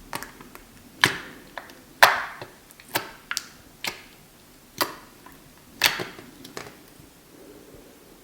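Dish soap and salt slime being handled, giving a series of sharp pops or clicks about once a second, the loudest near one, two and six seconds in.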